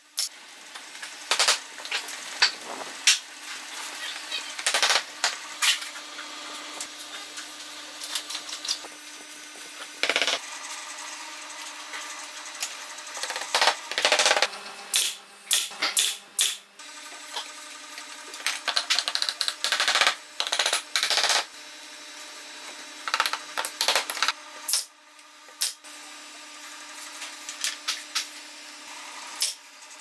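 Pneumatic brad nailer firing nails into small wooden pieces: sharp shots at irregular intervals, sometimes several in quick succession, over a faint steady hum.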